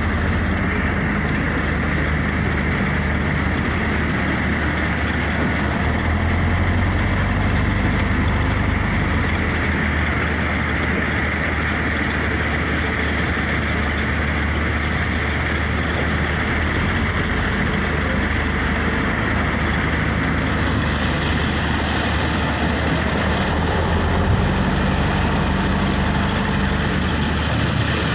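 Caterpillar 966F wheel loader's diesel engine running steadily as it drives and dumps a bucket of crushed stone into a dump truck, its pitch shifting a few times as it works.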